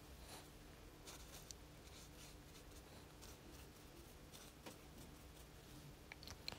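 Near silence: faint soft scratching of a gold brush pen stroking across paper, over a low steady hum.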